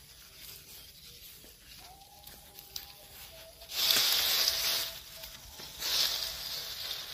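Dry coconut palm frond rustling and scraping as it is lifted and swept over grass. A loud rustle about four seconds in, then shorter, softer ones.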